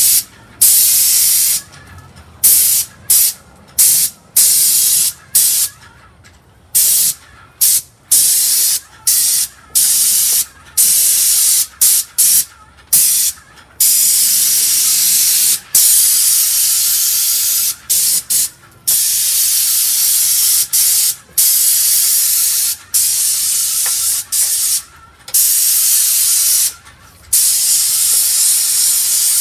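Airless paint spray gun hissing as its trigger is pulled and released over and over, in short bursts at first and then in longer sprays of a few seconds each.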